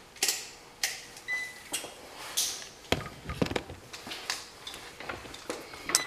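Scattered clicks and knocks of a multimeter and its test leads being handled and set down, with one short electronic beep about a second in.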